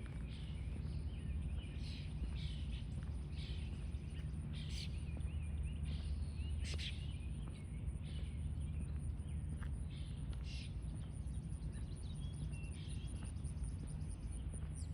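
Steady low rumble of outdoor background noise, with short high calls and chirps every second or two.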